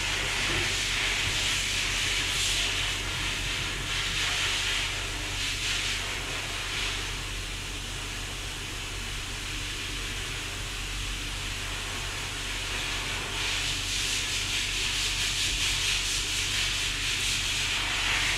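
A steady hiss over a low hum, growing louder and softer in waves, softest midway through.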